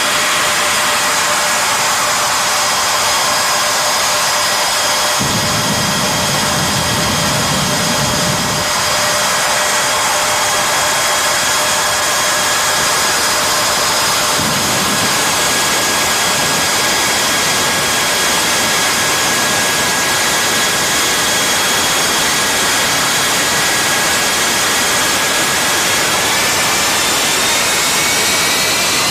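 Jet dragster's turbojet engine running steadily with a high whine over a loud rushing hiss, with a heavier low rumble twice. Near the end the whine rises in pitch as the engine spools up.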